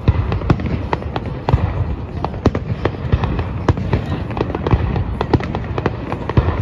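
Fireworks display: aerial shells bursting in an irregular run of bangs, several a second, over a steady low rumble.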